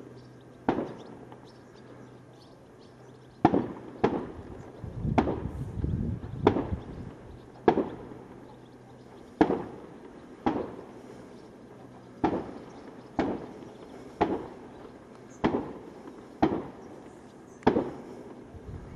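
Consumer fireworks battery (cake) firing a string of shots, a sharp bang roughly once a second, each with a short fading tail. A denser run of crackle comes about five to six and a half seconds in.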